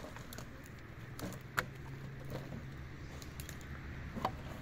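Wooden poles knocking against each other as one is pulled from a pile: a few sharp knocks, the loudest near the end, over a steady low hum.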